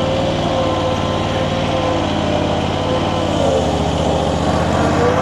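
Infront YF380 mini skid steer's engine running steadily while it works, with a higher whine above it that wavers in pitch; the low engine note shifts about three and a half seconds in.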